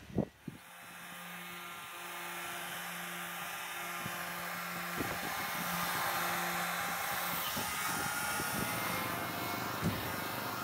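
Handheld electric detail sander running steadily as it sands the surface of a new boat rudder. The sound fades in over the first second or two.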